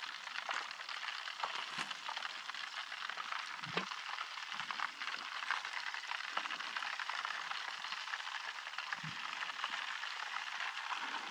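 Fish frying in a pan of hot oil, sizzling steadily with fine crackles.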